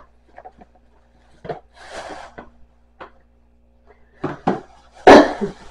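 Plastic food-storage containers and lids being handled, with a few scattered light knocks and clicks as they are set down and fitted together, and a louder clatter about five seconds in.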